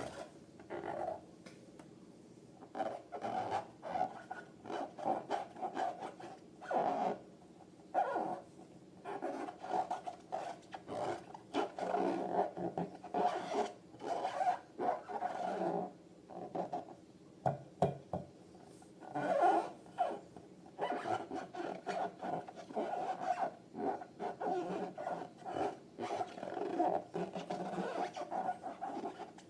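Rubber balloons and slime being squeezed and handled: irregular bursts of squeaky rubbing and squishing, one every second or so.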